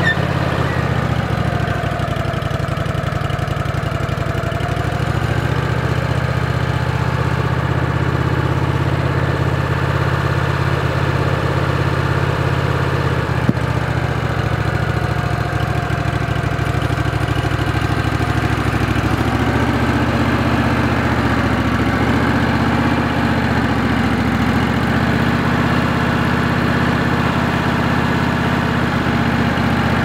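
Wood-Mizer LX150 portable sawmill's engine running steadily, its note shifting slightly about five seconds in and again about two-thirds of the way through, with one brief click near the middle.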